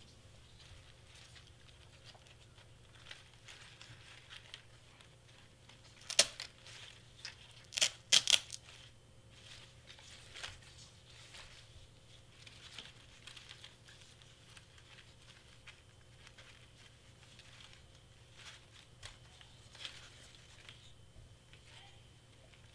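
Light rustling and crinkling as hands handle a satin ribbon bow against a wreath of cardstock leaves, with a few louder, sharp crinkles about six and eight seconds in.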